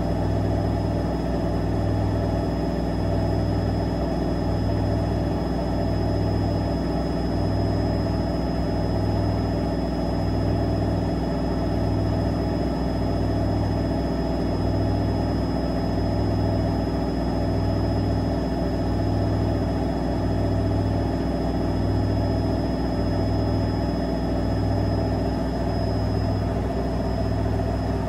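AEG front-loading washing machine drum spinning steadily at speed during an intermediate spin, with a low hum that swells and fades about every second and a bit and a thin, steady high-pitched whine.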